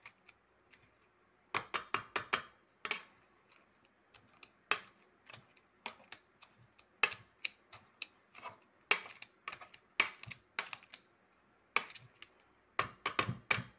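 Metal potato masher mashing cooked apples in a non-stick frying pan, its head tapping against the pan bottom in irregular clusters of sharp clicks.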